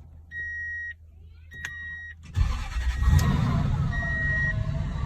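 Dashboard warning chime beeping twice with a click between, then the 2000 Toyota Tundra's engine catches about two and a half seconds in and settles into a steady idle while the chime keeps beeping, the new ignition cylinder working.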